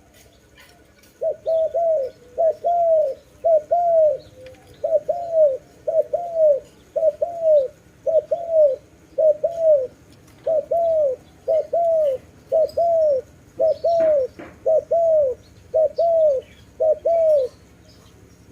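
A dove cooing: a long run of short, arched coos in quick pairs and triplets that starts about a second in and stops shortly before the end.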